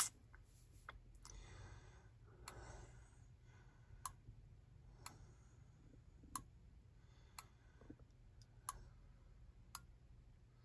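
Near-silent car cabin with a low steady hum, broken by one loud click at the start and then sharp single clicks about once a second.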